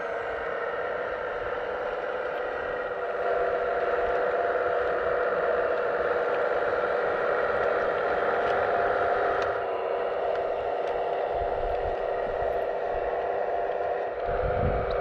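Hydraulic pump motor of a radio-controlled model excavator running with a steady whine, growing louder about three seconds in and shifting in tone near the end.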